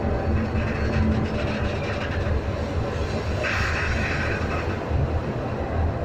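Passenger coach rolling slowly through an automatic coach washing plant, with a steady low rumble. Water spray from the wash gantry hisses briefly about three and a half seconds in.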